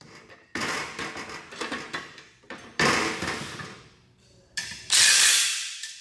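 Hardware being tightened on a steel cart frame: a run of small metallic clicks, a louder clank about three seconds in, and another burst of clattering near the end.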